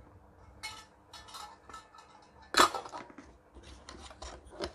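Scattered light clicks and knocks as a CRT television's circuit board and its wiring harness are handled and turned over, with one sharper knock about two and a half seconds in.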